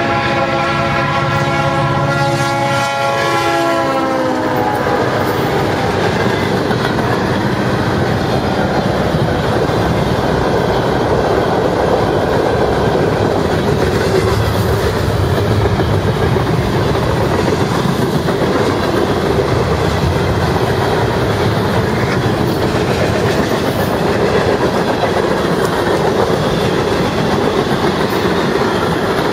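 A diesel freight locomotive's horn sounds a chord of several tones that falls in pitch as it passes about four seconds in. After that comes the steady noise of a long freight train's cars rolling by on the rails.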